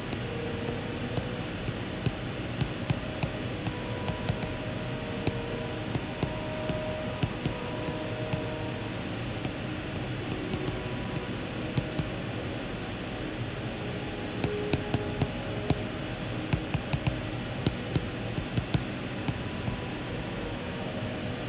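A stylus tapping and sliding on a tablet's glass screen during handwriting, heard as irregular light ticks over a steady fan-like hum.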